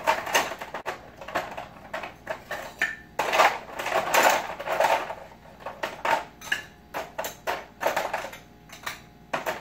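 Ice cubes scooped from an ice bin and dropped into a metal cocktail shaker tin, with an irregular run of clattering knocks and clinks, densest around the middle.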